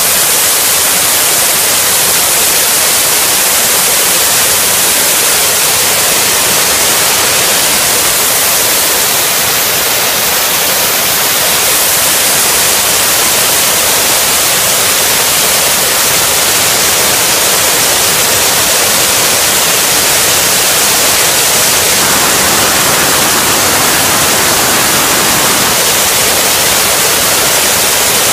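Loud, steady hiss of steam escaping from the Gresley A4 Pacific steam locomotive Bittern as it stands in the station.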